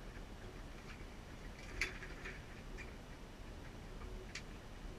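A few scattered light clicks and taps of fishing rods and tackle being handled on a boat deck, the sharpest about two seconds in, over a faint low rumble.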